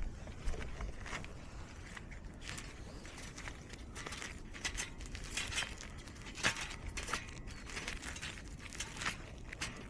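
Rustling and crinkling with scattered light knocks, as of camping gear or bags being handled.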